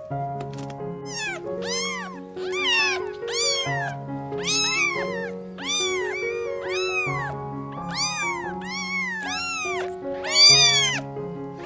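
A series of about a dozen short animal calls, each rising then falling in pitch, over background music with a simple stepping melody.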